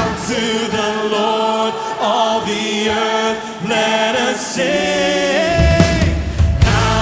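Live worship music: voices singing held, gliding lines with little bass beneath them, until the band's deep low end comes back in about five and a half seconds in.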